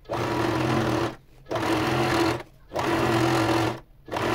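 Electric domestic sewing machine stitching a seam in knit fabric, run in short stretches of about a second each with brief stops between, then started again near the end.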